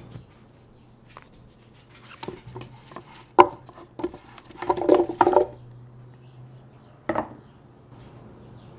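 Apple slices dropped by hand into a plastic blender jar onto banana pieces: a run of knocks and clattering against the jar, the sharpest about three and a half seconds in and a ringing cluster just after, then one more knock near the end. A steady low hum runs underneath.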